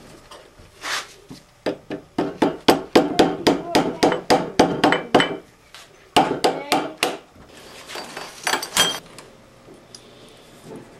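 Repeated hammer taps on a drift rod through the lathe headstock, driving out the spindle bearing. The taps come in quick runs of about four a second, with short pauses between them.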